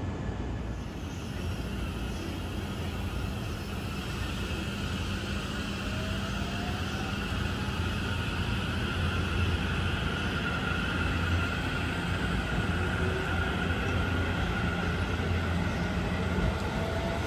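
Electric passenger train running through the station: a steady rumble with a faint rising motor whine, growing gradually louder.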